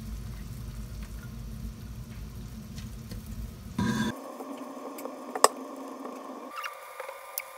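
Chopped onion sizzling faintly in olive oil in a nonstick pan as it is scraped in and stirred with a silicone spatula, with one sharp tap about five and a half seconds in. A low hum under it stops about four seconds in.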